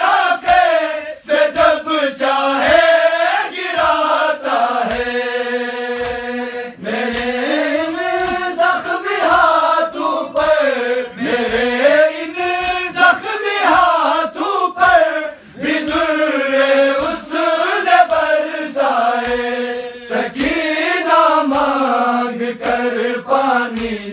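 A group of men chanting an Urdu noha in mourning, voices rising and falling together in a slow melody. A steady beat of thumps runs under it about twice a second, the rhythmic chest-beating (matam) that keeps time to a noha.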